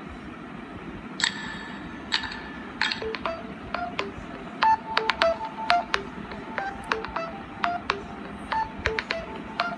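A song file playing through a smartphone's small speaker: from about a second in, a run of short, sharp, clicky pitched notes, like a tapped or plucked melody.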